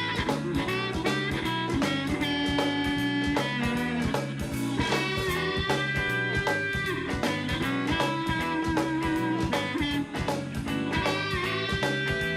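Blues band playing an instrumental passage: drums keep a steady beat under bass, guitar and long held lead notes.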